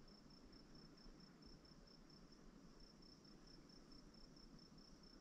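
Faint insect chirping: a high-pitched pulse repeating several times a second, over a low rumble.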